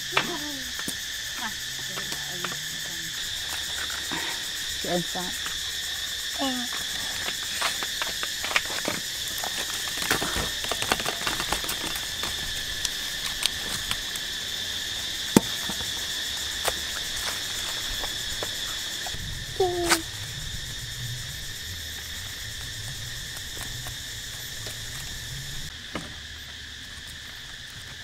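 Steady high-pitched insect chorus, with scattered clicks and taps and a few short falling calls.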